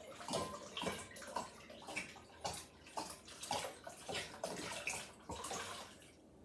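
Liquid glugging out of a bottle as grain alcohol is poured into quince syrup, in repeated gulps about two a second, stopping about six seconds in.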